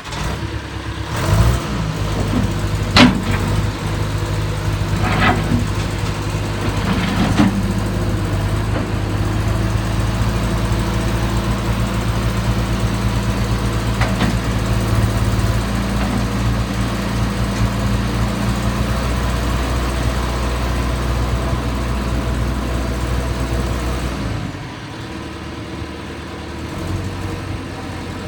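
John Deere 410E backhoe's diesel engine running at a steady speed, with a few sharp knocks over the first several seconds and one more around 14 seconds in. About 24 seconds in, the engine note drops and the sound gets quieter.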